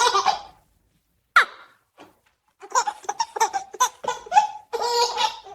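High-pitched laughter in quick, choppy bursts, with a short falling cry about a second and a half in.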